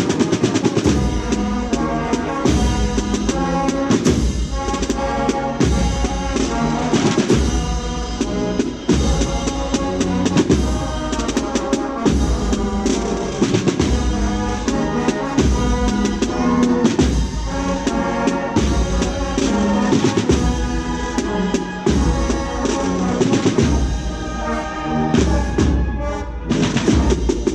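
Procession marching band playing a slow march: a steady bass drum beat, about one stroke a second, under snare drums and a melody line.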